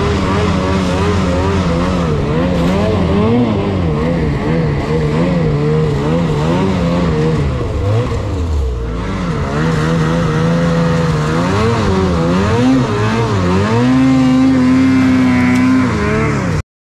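Snowmobile engine running under the rider's changing throttle, its pitch rising and falling, dipping briefly about halfway through and held steadier and higher near the end before the sound cuts off suddenly.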